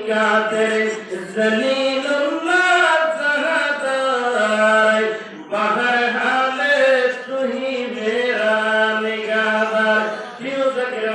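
A man chanting a slow devotional melody into a microphone, holding long notes that slide up and down, with a short breath about five and a half seconds in.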